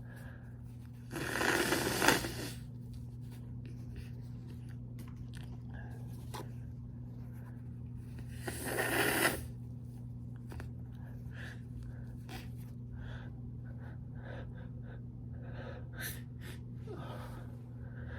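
A man sneezing twice, about seven seconds apart, each sneeze building up and then bursting out, set off by sniffed chhinkni, a sneeze-inducing herb.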